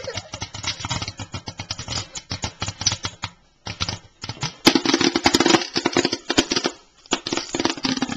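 Popcorn kernels popping rapidly in a covered pot under a glass lid: a dense, fast run of sharp pops and ticks. It lets up briefly about halfway through, then comes back stronger.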